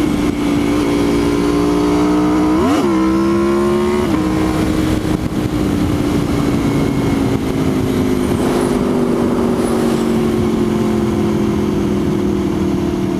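Motorcycle engine running while riding, with wind rush. The engine note rises and falls quickly about three seconds in, steps down in pitch about a second later, then slowly sinks as the bike eases off.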